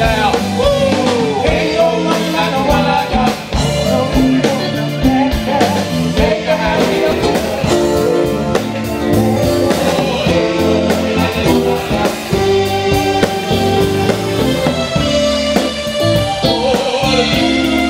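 Live band music: male singers singing over guitar, keyboard and a drum kit at a steady dance beat.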